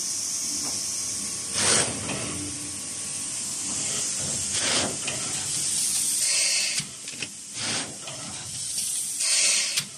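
PET box thermoforming machine running: a steady hiss of compressed air, with louder blasts of air from its pneumatic forming station every few seconds and a few short mechanical clicks and knocks.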